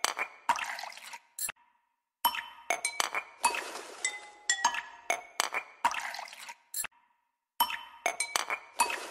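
Background music of bright, glassy clinking and chiming notes. A short phrase loops, with a brief break in the sound about two seconds in and again about seven seconds in.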